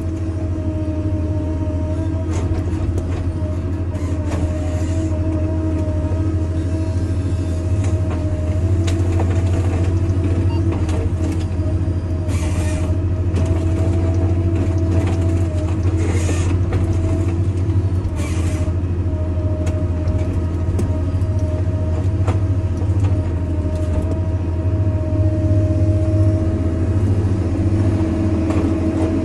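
Ponsse forestry harvester running steadily under load: a constant low engine drone with a steady whine over it, as the boom and harvester head work. A few short bursts of hiss come in the middle.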